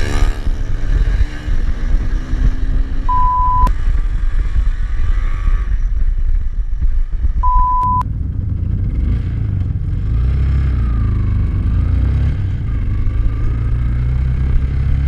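Bajaj Pulsar NS200's single-cylinder engine running under way, with heavy wind rumble on the bike-mounted microphone. Two short steady test-tone beeps cut in, about three and seven and a half seconds in.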